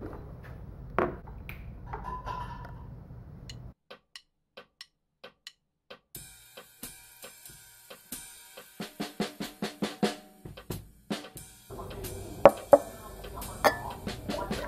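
Instrumental hip-hop-style beat with drums that comes in about six seconds in. Before it there is a stretch of sharp ticks, about three a second, and a low room hum with a single knock about a second in.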